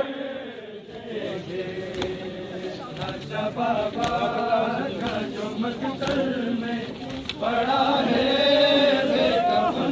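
Male mourners' voices chanting a noha (Urdu lament) in chorus, with several voices together in a slow, wavering melody. The chanting is softer at first and swells louder about seven and a half seconds in.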